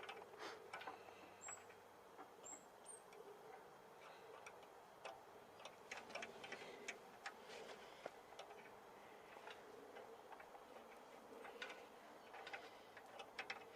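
Faint, irregular metallic clicks and ticks of a C-spanner working the slotted preload adjuster on a Harley-Davidson XG 750 Street's rear shock absorber.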